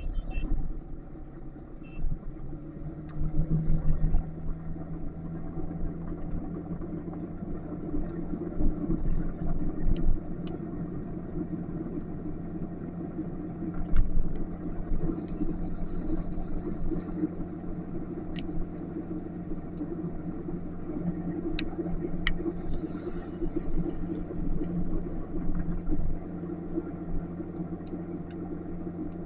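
Motorcycle engine running steadily while riding: a low rumble with a steady hum, and a few sharp ticks scattered through.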